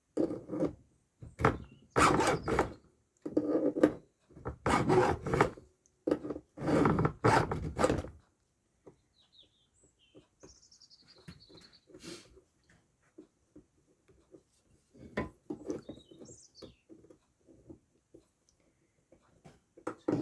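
Round file rasping across the cutter teeth of a chainsaw chain during hand sharpening: about six strokes in the first eight seconds, then quieter scrapes and light taps.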